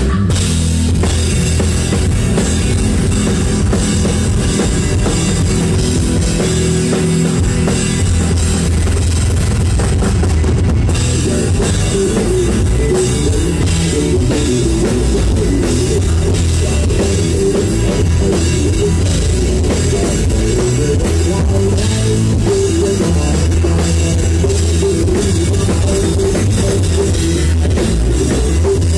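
Live rock band playing loudly: a full drum kit with kick drum and cymbals driving a steady beat under electric bass and electric guitar.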